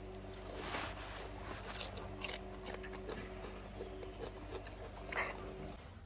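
Japanese macaque biting and chewing a green vegetable pod close by: crisp crunching and clicking bites, with a few louder crunches. A steady low hum runs behind and stops near the end.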